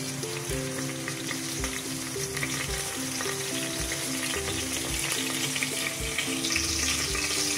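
Whole spices (cloves, fennel seeds, bay leaves and dried red chillies) sizzling as they fry in hot oil in a stainless steel pressure cooker. Soft background music with a slow melody and a beat about once a second plays over it.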